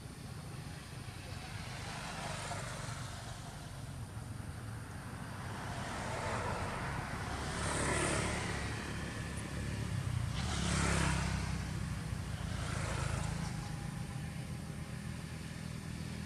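Road vehicles passing one after another, each swelling up and fading away; the loudest passes come about 8 seconds in and again about 11 seconds in, with a weaker one shortly after.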